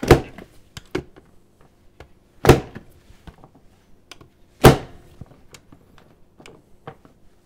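Genius hand-press food chopper pressed shut three times, about two seconds apart, each stroke a sharp plastic knock as potato chunks are forced through the cube-blade grid. Light clatter of vegetable pieces being set on the grid between the strokes.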